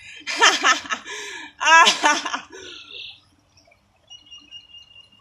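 A woman laughing and giving wordless vocal exclamations for about three seconds. Then faint small sounds as she drinks from a plastic water bottle, with a thin high tone near the end.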